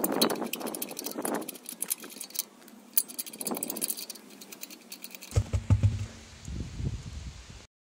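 Plastic wheel-bolt caps clicking and rattling as they are worked loose and pulled off the lug bolts by hand, a quick run of sharp clicks. About five seconds in this gives way to a low rumbling noise.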